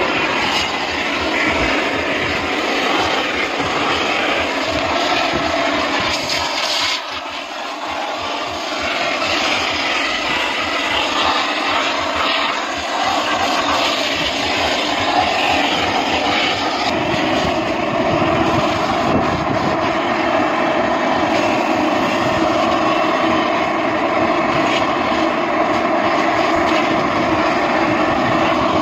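Coin-operated car wash vacuum running steadily as its hose nozzle sucks dirt from a car's seats and floor carpet; the sound dips briefly about seven seconds in.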